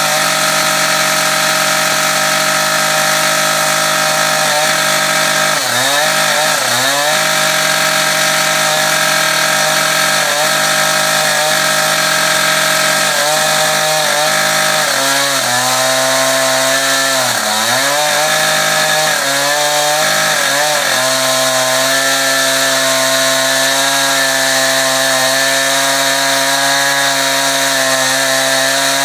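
Concrete chainsaw running at high speed, cutting through a concrete pool wall. Its pitch holds steady but drops briefly several times in the middle as the chain bites and is loaded, then recovers.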